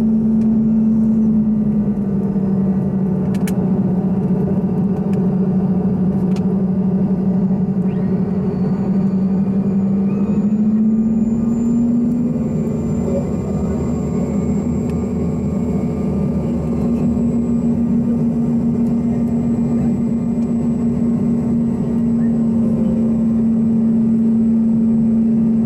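Cabin noise of a Bombardier CRJ-200 on approach, from its two rear-mounted GE CF34 turbofans: a loud, steady drone with a hum that drops slightly in pitch about two seconds in and climbs back about eleven seconds in. A faint high whine sounds over it in the middle.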